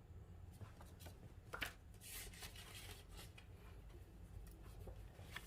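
Faint paper rustling and handling, with a few soft clicks: a small printed instruction leaflet being picked up and leafed through.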